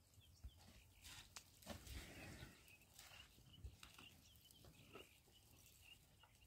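Near silence: faint outdoor ambience with scattered soft knocks and short faint high chirps.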